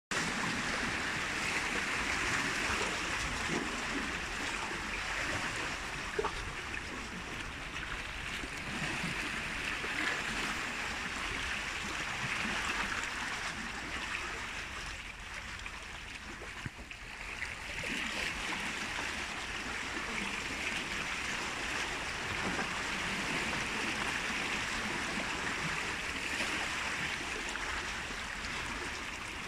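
Sea water washing and splashing against the rocks of a breakwater, a steady hiss that swells and eases and dips for a few seconds about halfway through.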